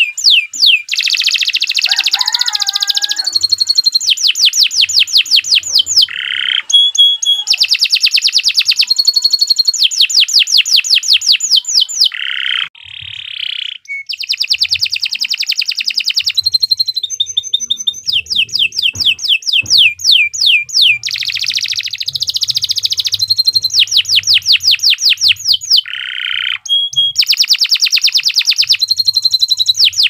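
Domestic canary singing a long, continuous song: rapid trills of quickly repeated sweeping notes, broken by buzzy rolls and short rattles, with a few brief pauses.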